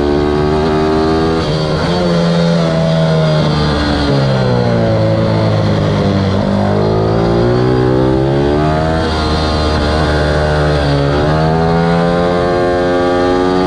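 Ohvale 160 minibike's single-cylinder four-stroke engine at race pace. Its pitch falls as the bike slows for a corner about five seconds in, then climbs again under hard acceleration, breaking briefly at upshifts about nine and eleven seconds in.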